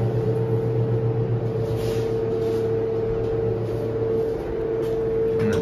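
Federal hydraulic elevator running, heard from inside the car: a steady hum with a steady whining tone held throughout.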